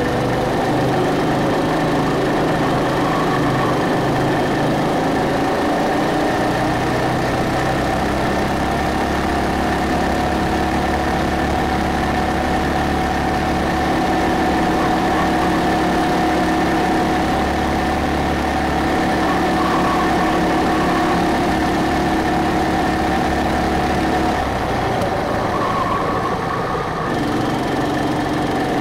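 Go-kart's small petrol engine running hard under throttle. Its pitch climbs over the first several seconds and then holds steady along the straight. Near the end the revs drop as the throttle is lifted for a tight corner, then begin to climb again.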